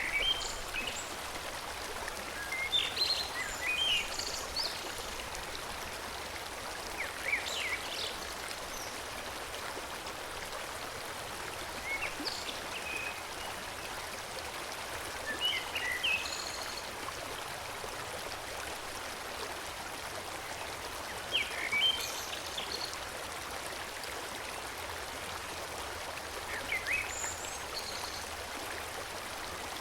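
Forest stream flowing steadily, with birds chirping briefly every few seconds.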